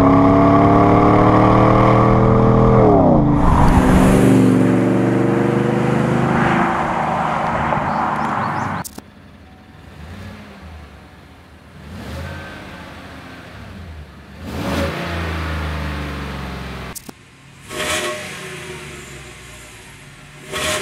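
GM full-size SUV V8 with Kooks long-tube headers, Y-pipe and cat-back exhaust, loud under acceleration. Its pitch rises, drops sharply about three seconds in, then holds steady. After a sudden cut, a GM SUV with the stock exhaust is revved at standstill in several short blips, much quieter.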